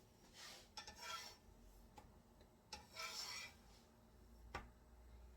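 Near silence with soft rubbing and three light clicks, from hands working samosa wrappers.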